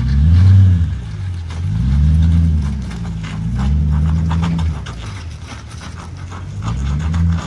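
Dodge Charger R/T's HEMI V8 being revved in repeated swells, rising and falling about four times, spinning the rear wheels of the raised car through a freshly welded differential. A rapid scatter of clicks runs over the engine sound.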